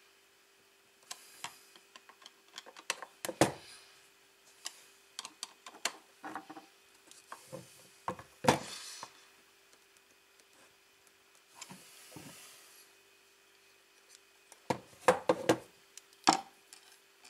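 A screwdriver drives screws into the aluminium case of a power inverter, with scattered clicks, scrapes and knocks as the metal case is turned over and set down on a wooden table. The loudest knocks come about three and eight seconds in and in a cluster near the end. A faint steady hum runs underneath.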